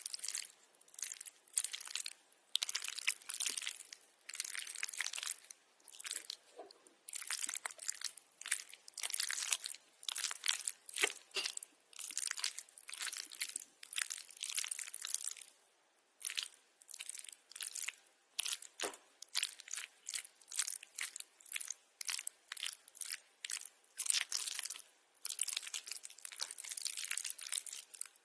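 Close-miked crunching of crisp food being bitten and chewed: a long run of short, irregular, crackly crunches with brief gaps between them and a longer pause a little past the middle.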